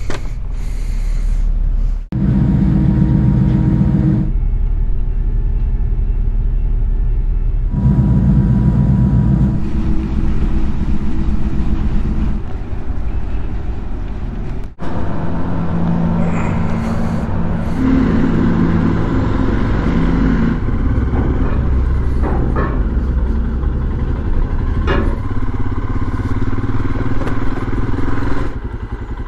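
Royal Enfield Himalayan's 411 cc single-cylinder engine running and riding off a ferry's car deck, its pitch rising and falling with the throttle. The sound breaks off abruptly twice, about two and fifteen seconds in.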